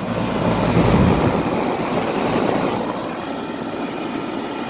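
2002 Carrier 38CKC central air-conditioner condensing unit running: a steady whooshing fan noise that swells louder for a moment about a second in. The owner suspects plugged coils or a fan spinning in reverse, because the air comes out only around the sides and not out the top.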